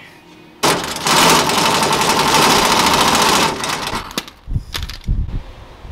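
Pneumatic impact wrench hammering steadily for about three seconds as it works bolts loose, followed by a few separate knocks and thumps.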